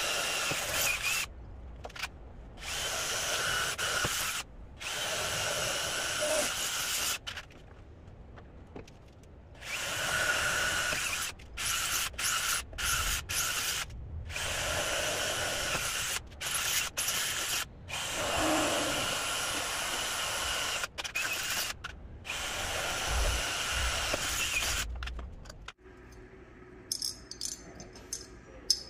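Cordless drill boring into a metal channel, running in repeated spells of one to three seconds with short stops between. Near the end, a few small metal clicks.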